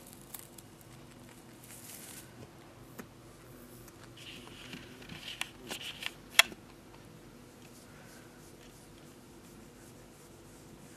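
Faint crisp crackling of a Holland Lop rabbit nibbling its woven dried-grass house. About four seconds in comes a burst of rustling and clicking that ends in one sharp click.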